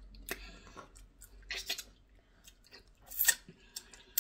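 Close mouth sounds of a person eating soup and fufu by hand: wet chewing with a scatter of short, sharp lip smacks, the loudest a little past three seconds in.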